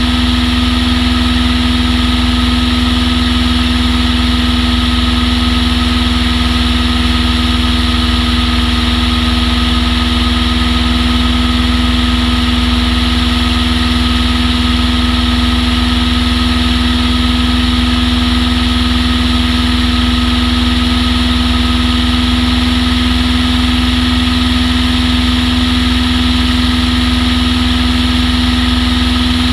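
Long-EZ light aircraft's engine and pusher propeller running at a steady speed, loud and even, with no change in pitch.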